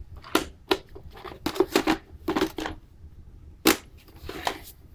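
Plastic clicks and knocks from the Roomba 870's dust bin and body being handled, several in quick succession, with one sharp knock a little before four seconds in.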